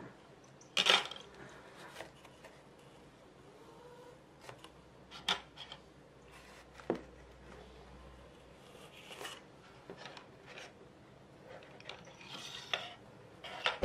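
Light handling sounds on a tabletop: a sharp clatter about a second in as a pair of eyeglasses is set down, then a few scattered small taps and rubs.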